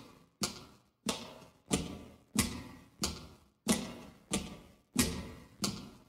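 Sharp percussive clicks repeated at a steady tempo, about three every two seconds, each fading out with a short ringing tail. They set the pulse for a looped vocal jam.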